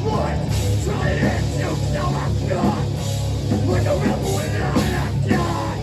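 Live heavy rock band playing loud and dense, with drums hitting regularly over a heavy low end, and synth in the line-up.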